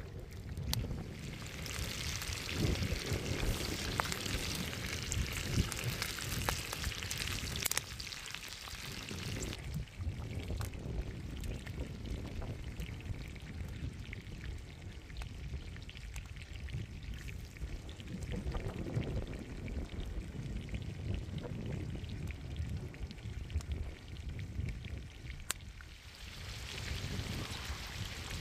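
Beef steaks sizzling and frying in a wide pan over an open wood fire, the hiss strongest for the first eight seconds or so and again near the end. A few sharp clicks stand out, with a low rumble beneath.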